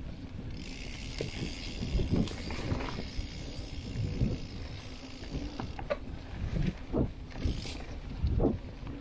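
Mountain bike rolling along a dirt trail. The rear hub's freewheel ratchet buzzes while coasting, from about half a second in until it stops near six seconds. Low knocks from bumps in the trail come through the whole time.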